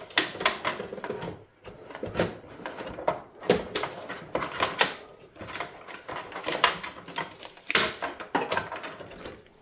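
Irregular clicks, knocks and rustling as a grey ribbon cable and power leads are handled and tugged inside a metal desktop PC case.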